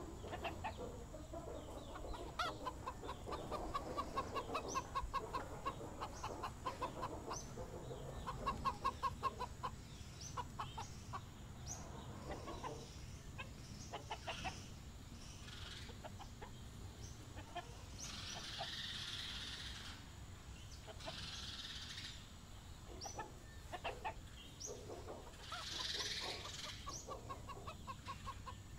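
Domestic chickens clucking, in quick runs of clucks during the first ten seconds or so and scattered clucks after that, with a few short hissy rustles later on.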